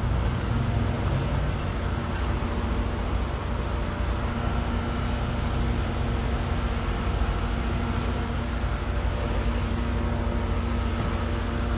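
Road traffic on a busy multi-lane street: a steady rumble of vehicles with a constant low hum.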